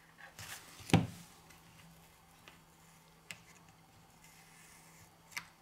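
Handling noise from a smartphone teardown: a sharp knock about a second in, with a little scraping just before it, then two light clicks as tools and parts are handled on the phone's frame.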